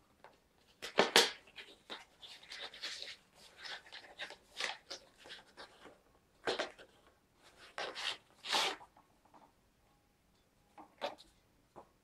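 Cardboard SSD retail box being handled and opened, with the inner cardboard box slid out: irregular scraping, rubbing and sharp taps of cardboard. The loudest handling comes about a second in and again around eight and a half seconds.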